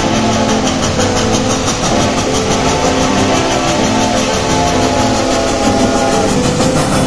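Reading & Northern 4-8-4 steam locomotive 2102 working past close by, its exhaust beating quickly and evenly at about six chuffs a second, with steady tones mixed in underneath.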